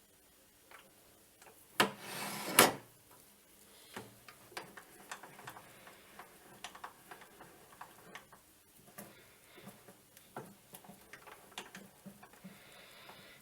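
Small hand-work clicks and taps on a small metal part, with no machine running. About two seconds in there are two sharp knocks with a short scrape between them, followed by many light, irregular ticks.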